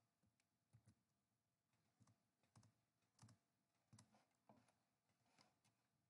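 Faint computer keyboard keystrokes and mouse clicks, about a dozen light taps at irregular spacing.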